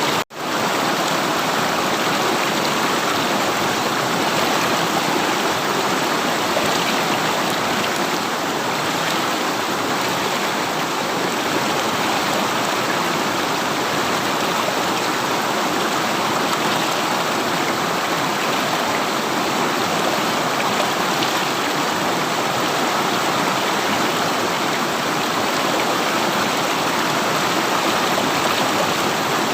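River water flowing steadily in an even, unbroken rush. The sound drops out for an instant just after the start.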